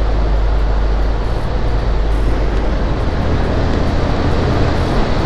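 Motorcycle riding steadily along a paved road: the engine's low hum and tyre noise under a heavy, even rush of wind over the microphone.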